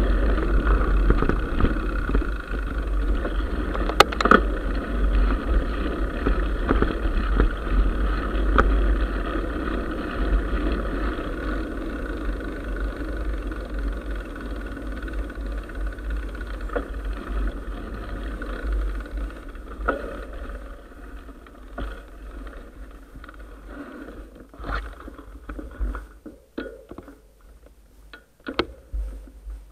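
Mountain bike riding a dirt track: wind rumble on the camera microphone with tyre and frame rattle. The noise fades as the bike slows, and scattered clicks and knocks come near the end as it stops.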